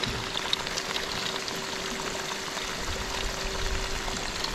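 Heavy rain falling, a steady even hiss, with a faint steady hum underneath.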